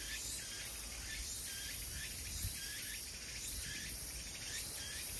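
Woodland insects chirping steadily, a short repeated chirp about twice a second over a high, even hiss of insect noise.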